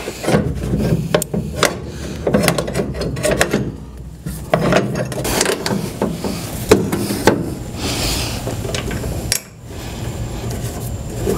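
Irregular clicks, knocks and scraping as a table saw's caster is handled into place under the saw's base and its mounting screws are started by hand.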